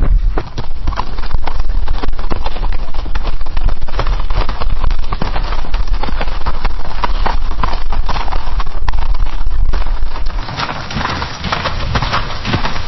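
Horse galloping on a dirt path: a fast, continuous run of hoofbeats thudding on the ground. About ten seconds in it cuts to another gallop, quieter, with sharper hoof clatter.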